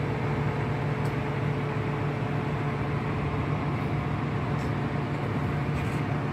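Steady low hum and rush of background machinery running in a repair shop, with a few faint ticks.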